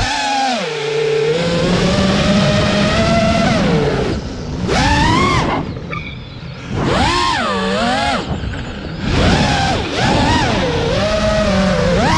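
FPV quadcopter's electric motors whining as the throttle goes up and down, the pitch rising and falling in repeated swells. The whine drops and quietens about four seconds in and again around six seconds in, as when the throttle is cut for a dive, then climbs back.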